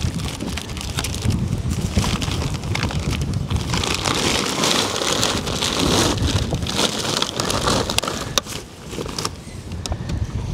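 Strong wind buffeting the microphone, with scattered small clicks and knocks and a louder hissing rush in the middle.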